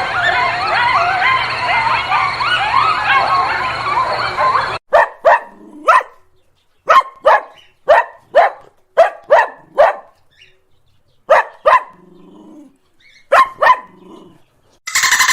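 A dense chorus of warbling, rising animal calls that cuts off suddenly about five seconds in, followed by a dog barking sharply in short runs of two to four barks. Just before the end a harsh, buzzing sound starts.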